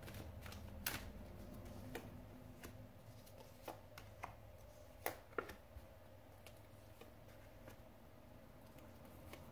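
Faint, scattered clicks and flicks of a tarot deck being shuffled and handled by hand, over a low steady room hum.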